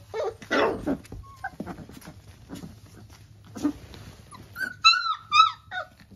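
Three-week-old Labrador puppies yipping and whimpering as they play: a harsher, noisier cry about half a second in, then three loud high yips close together near the end, each falling in pitch.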